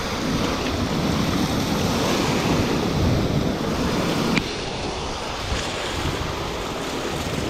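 Sea surf washing over rocks, with wind buffeting the microphone in a heavy low rumble. The rumble drops off suddenly a little past halfway, leaving the surf quieter.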